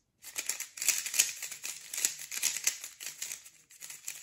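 A UV-coated magnetic 3x3 speedcube being turned quickly by hand: a rapid, uneven run of light plastic clicks and clacks, with a short pause a little before the end.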